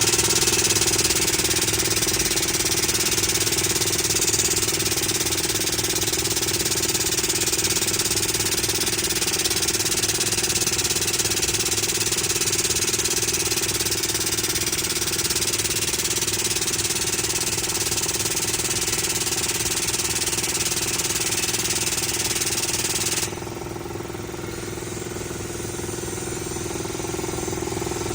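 A loud, steady hiss of machinery over the hum of a running engine. The hiss stops suddenly about 23 seconds in, leaving the engine running alone.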